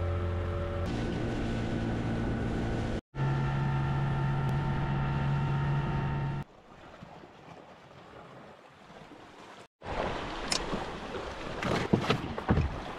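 Small outboard motor running steadily as the dinghy moves over the water, heard in short clips broken by sudden cuts. In the last few seconds, water splashing with some sharp knocks.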